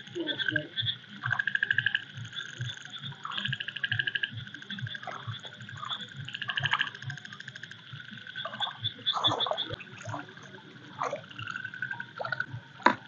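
Frogs calling in repeated bursts of rapid trills, over irregular splashing and sloshing of shallow water stirred by someone wading and working in it.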